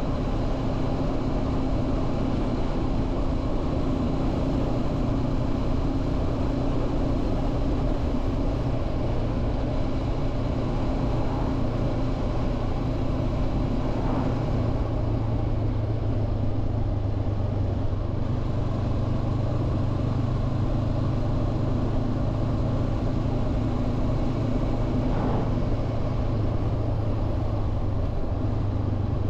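Honda CB500F's parallel-twin engine running steadily while the motorcycle cruises, over a steady rush of wind and road noise; the engine note gets stronger about halfway through.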